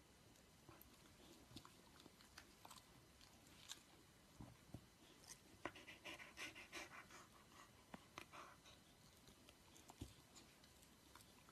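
Near silence with faint clicks and wet mouth noises from a dog yawning and working its jaws. About six seconds in there is a short run of faint breathing.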